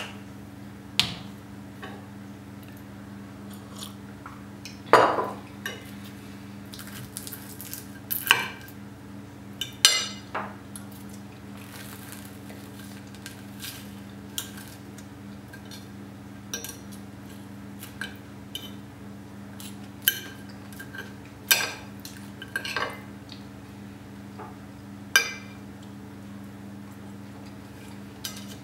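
Knife and fork clinking and scraping against a ceramic dinner plate while cutting food, in irregular sharp clinks, the loudest about five seconds in.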